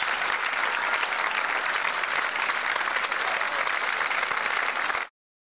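Audience applauding steadily, then cut off suddenly about five seconds in.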